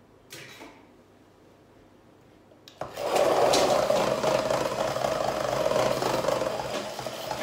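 Hand-held stick blender switched on about three seconds in, its motor running steadily as it blends cake batter in a glass bowl.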